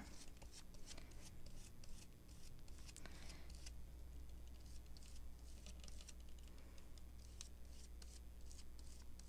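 Faint, irregular small clicks and scratches of hand work on paper, with a brush, paper or scissors being handled.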